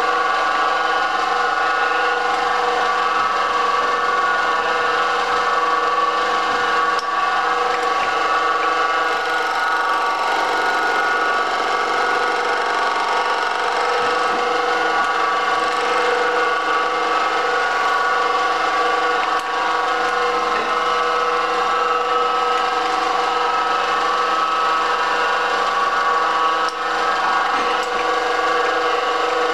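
Carba-Tec benchtop milling machine running steadily with a fly cutter in the spindle, milling serrations into a perspex rosette, with a few faint clicks along the way.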